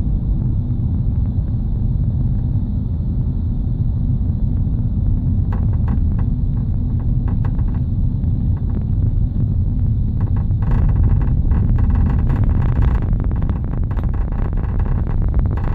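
Ford Fiesta running on the road with a steady low rumble. From about a third of the way in comes an irregular rattling and clicking, thickest in the middle stretch: the abnormal noise from the back of the car, whose cause the owner does not know.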